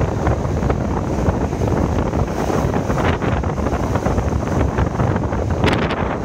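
Ocean waves surging and crashing against rock ledges, white water churning through a narrow gully, with heavy wind buffeting the microphone. A bigger surge comes in about halfway through.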